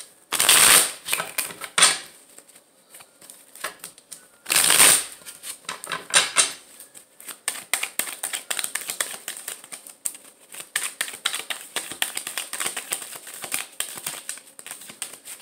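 A tarot deck being shuffled by hand: two loud rushes of cards, each about a second long, near the start and about four and a half seconds in, then a long run of fast card clicks.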